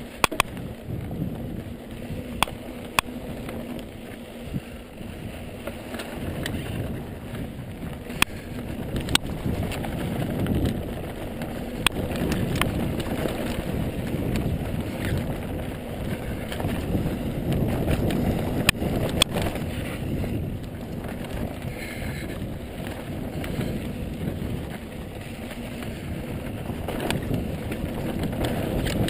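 Ibis Mojo mountain bike descending a dry dirt singletrack: steady tyre rumble and wind buffeting on the microphone, swelling and easing with speed, broken by frequent sharp clicks and rattles from the bike over bumps.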